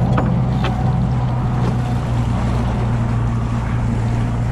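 Motorboat engine running steadily at low speed while the boat moves through the water. Two brief clicks come near the start.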